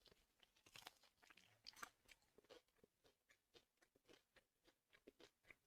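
Very faint crunching and chewing of crispy fried chicken, heard as scattered soft crackles and bites.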